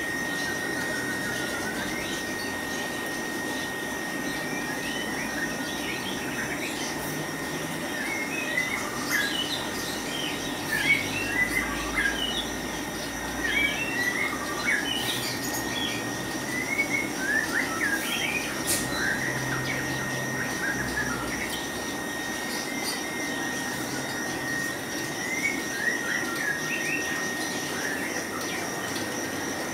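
Small caged birds chirping in many short, quick calls, busiest from several seconds in until near the end. Under them runs a steady high tone and a steady low hum from the shop's aquarium equipment.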